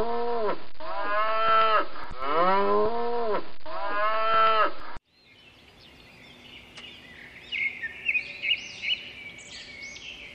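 A cow mooing: several long, drawn-out moos one after another. About five seconds in the moos stop, and faint birds chirp.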